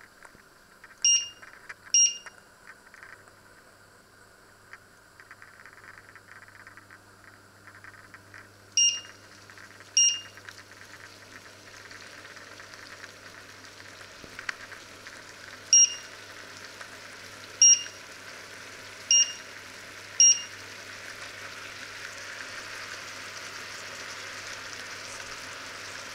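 An electric hob's touch-control panel beeps eight short times, in pairs and singles, as its power and timer are set. Underneath, asparagus simmers and sizzles in liquid in the pan, the sizzle growing louder over the second half.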